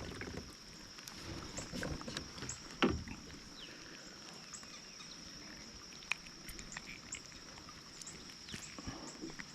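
Quiet lakeside ambience: scattered faint clicks and small knocks from handling gear around the kayak, with one sharper knock about three seconds in, over a faint steady high tone.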